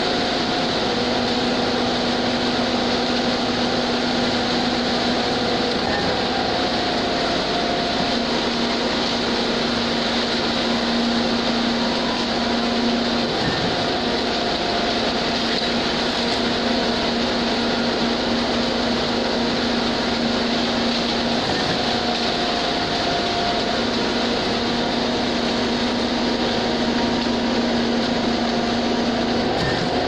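Concrete mixer truck and concrete pump engines running steadily under load as the truck discharges concrete into the pump's hopper: a constant mechanical drone with a steady hum that drops out briefly a few times.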